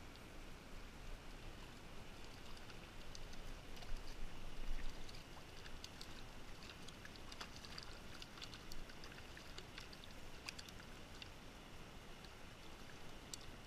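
Small mountain creek flowing steadily, with many small clicks and splashes of water from about three seconds in to about eleven, and a few louder bumps around four to five seconds, as a small hooked trout is handled in the shallows.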